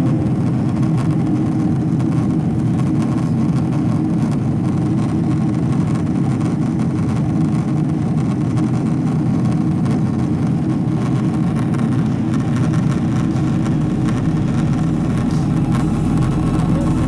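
Steady drone of a Boeing jet airliner heard from inside the passenger cabin: engine and airflow noise, low and even.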